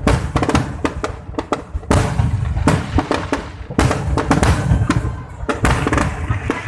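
Aerial firework shells bursting in a rapid barrage: a dense string of sharp bangs with crackling between them.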